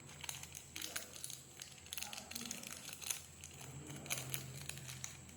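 Plastic candy wrapper crinkling as it is handled and unwrapped, a run of irregular sharp crackles.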